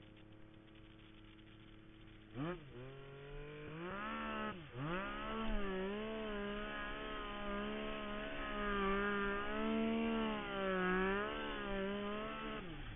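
Snowmobile engine at low revs, blipped once about two and a half seconds in, then revved up and held at high revs under load as the sled climbs a steep slope, its pitch wavering, before dropping off near the end.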